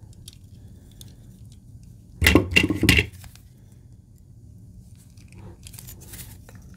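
Brief clatter and clink of metal hand tools, crimping pliers handled to crimp an aluminum bead on thin steel cable, about two seconds in, followed by a few fainter clicks near the end.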